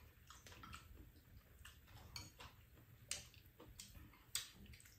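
Quiet eating sounds: chopsticks clicking and scraping against noodle bowls, with two sharper clicks about three and four seconds in.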